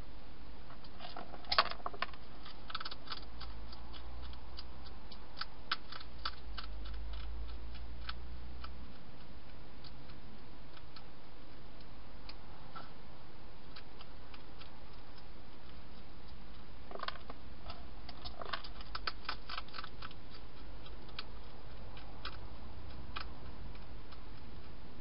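Wild hedgehog crunching dry food inside a plastic feeding box: clusters of small, sharp crackling clicks about a second and a half in, again a few seconds later, and near the last third, over a steady hiss.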